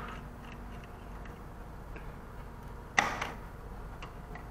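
Light clicks and taps of parts being handled inside an HP ProLiant DL380p Gen8 server chassis, with one sharper click about three seconds in.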